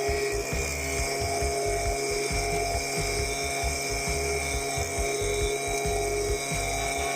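STIHL BG86 two-stroke leaf blower engine running at a steady, constant speed, its carbon-clogged muffler screen burned clean and its carburettor freshly adjusted so that it now revs up.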